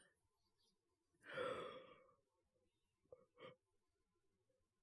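A man's long breathy sigh, falling in pitch, followed a second or so later by two short faint vocal sounds.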